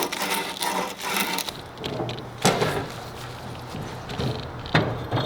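A few sharp knocks on steel as bevelled plugs are driven into the hardtail frame tubes: one about two and a half seconds in, then two more close together near the end, with handling noise between them.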